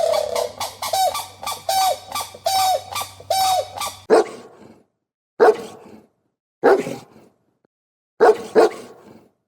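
A dog barking: a fast run of repeated pitched barks, then, after a break, a few separate single barks and a quick double bark near the end.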